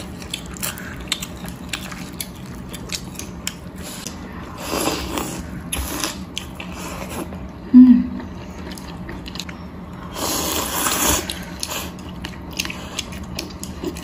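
Close-up eating of luosifen rice noodles with chopsticks from a glass bowl: small chewing and utensil clicks throughout, and two long noodle slurps, one about five seconds in and one about ten seconds in. A brief falling hum about eight seconds in is the loudest moment.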